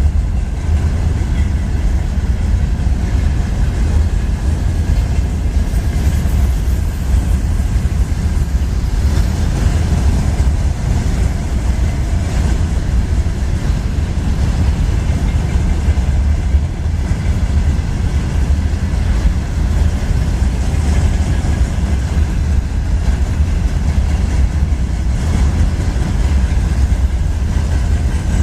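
Freight train rolling past at steady speed: a continuous low rumble of wheels on rail.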